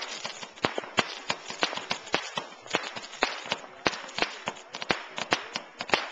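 Fireworks going off in quick succession: a rapid, irregular run of sharp pops and bangs, several a second.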